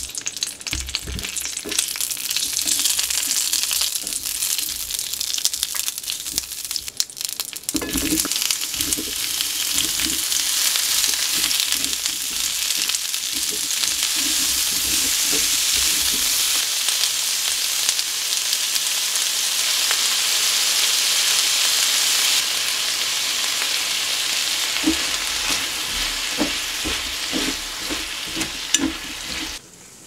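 Sausages and sliced vegetables sizzling in hot oil in a frying pan as they are stir-fried, with occasional light knocks, several of them near the end.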